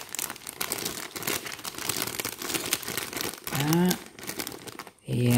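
Clear plastic bags crinkling as bagged plastic model-kit runners are handled and lifted out of their box, an irregular run of many quick crackles.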